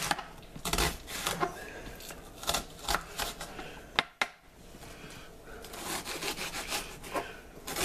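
Kitchen knife slicing through a whole peeled onion on a plastic cutting board: irregular rasping cuts with the blade tapping the board, and two sharp taps about halfway through.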